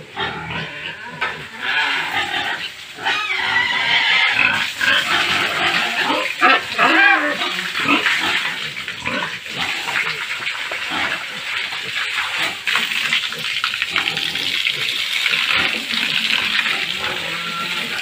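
Piglets squealing and crying in a pen, with the shrill calls thickest in the first half. Later a steadier rush of water from a hose joins them.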